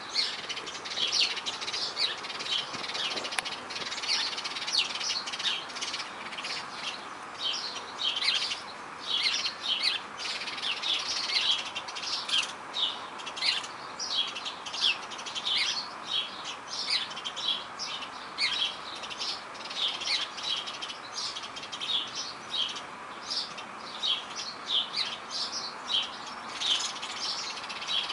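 Birds chirping: many short, high chirps overlapping without pause, over a steady background hum of outdoor noise.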